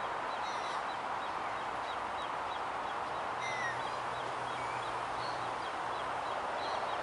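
Outdoor ambience: a steady, even hiss with small faint bird chirps over it. A faint low hum comes in for a couple of seconds in the middle.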